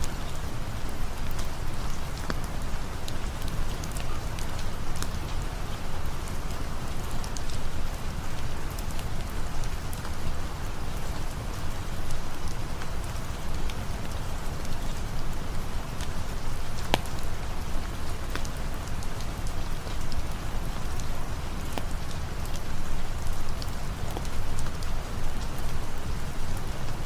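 Steady rain falling, with scattered small sharp ticks over a deep, even rumble.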